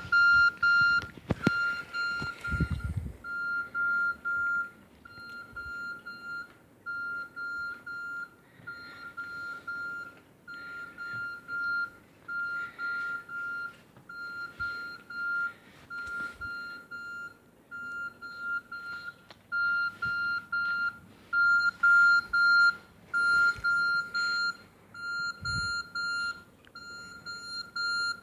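Nokia 6300 mobile phone playing a single-pitched electronic beep tone as a ringtone, the same high beep repeated evenly about once a second. A few low handling bumps sound in the first few seconds.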